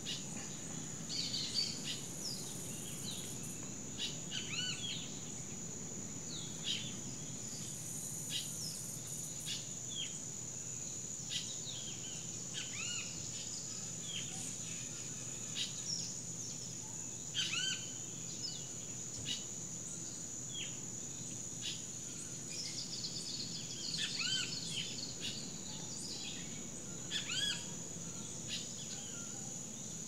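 Tropical rainforest ambience: a steady high-pitched insect drone, with many short bird chirps and calls scattered throughout over a low steady rumble.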